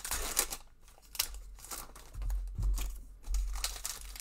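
Foil wrappers of trading-card packs crinkling and rustling in the hands in irregular handfuls.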